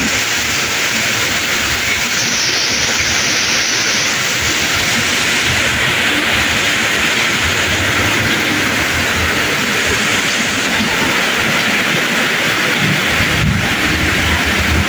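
Very heavy rain pouring down, a loud, steady, even hiss.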